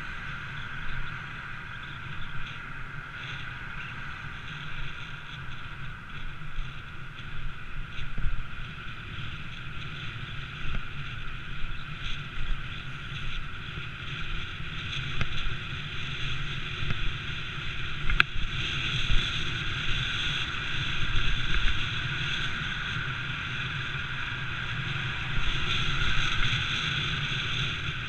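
Steady wind rush and road rumble picked up by a camera on a moving rider, swelling louder about two-thirds of the way through, with a single sharp tick just before.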